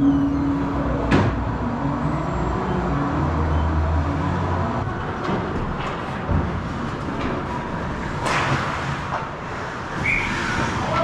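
Hockey game play: a steady rink rumble broken by two sharp impacts, about a second in and again about eight seconds in.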